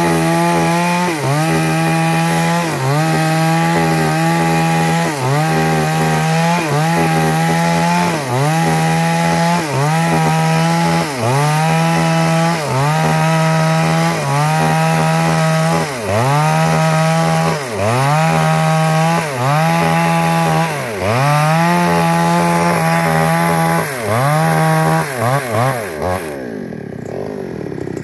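Two-stroke chainsaw running at high revs while cutting wood, its engine pitch dipping briefly and recovering about every second and a half. Near the end the revs fall away and the saw drops back toward idle.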